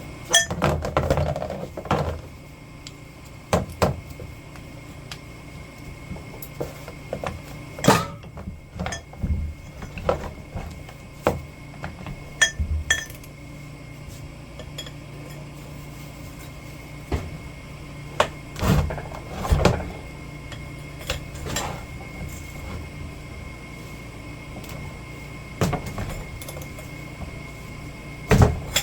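Scattered metallic clanks and knocks of tools and metal parts being handled, irregular and spaced a few seconds apart, over a steady low hum.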